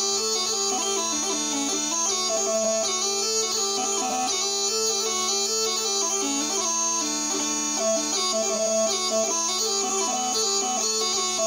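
Marr Wee Pipes, a small mouth-blown bagpipe, playing a hornpipe: a quick chanter melody over a steady drone.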